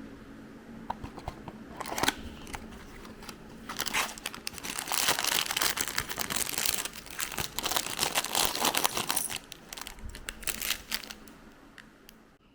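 Plastic packaging being crinkled and handled: a few light clicks, then several seconds of dense crinkling and crackling that dies down near the end.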